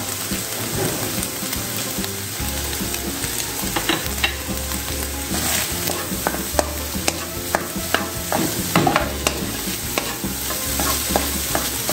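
Cut green beans and scrambled egg sizzling in a non-stick frying pan while a spatula stirs and scrapes them, making irregular clicks and scrapes over a steady frying hiss.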